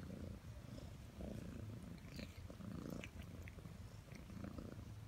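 Domestic cat purring, a steady low pulsing rumble, with a few faint clicks over it.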